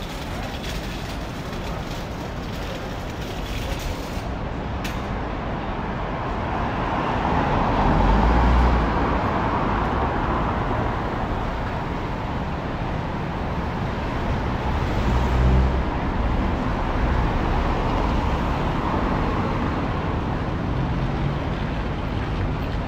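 Street traffic: motor vehicles passing close by, with two louder passes about eight and fifteen seconds in that bring a deep engine rumble.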